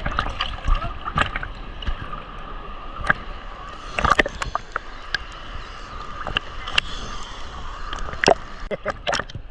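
Scattered sharp clinks and knocks of crockery and cutlery, with some water sounds underneath.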